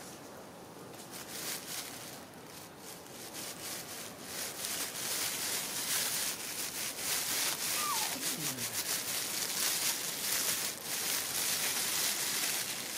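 Rustling and scuffing as baby macaques move about on a woven plastic mat, a dense crackly hiss that grows louder over the first few seconds, with one short falling squeak about eight seconds in.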